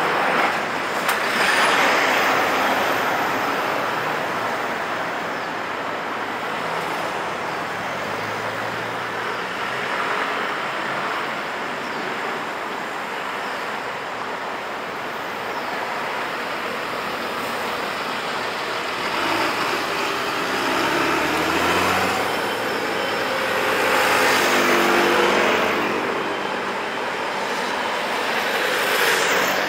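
City street traffic: a city bus drives past close by, then cars and motor scooters run through the intersection. Engines rise in pitch as vehicles pull away about twenty seconds in.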